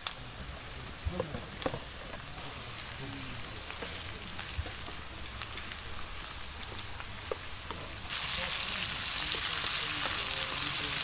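Sliced sausage and onions frying in a pan over a wood fire: a steady sizzle with a few light knocks in the first two seconds as the sausage goes in and is stirred. The sizzle gets much louder and stronger about eight seconds in.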